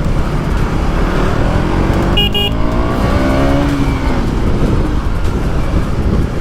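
Wind rumble on a helmet or bike-mounted microphone while riding a motorcycle in traffic. About two seconds in comes a quick double horn beep, followed by an engine rising and then falling in pitch.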